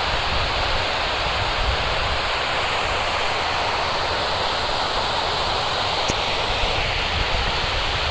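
River water pouring with force over a low check dam, a steady, loud rushing with no change in level.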